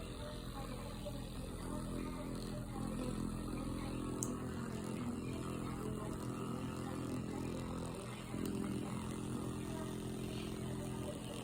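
Domestic cat purring steadily while being massaged, a contented purr.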